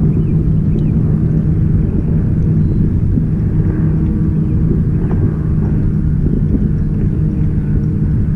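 Boat motor running steadily at low speed: a continuous low rumble with a steady hum.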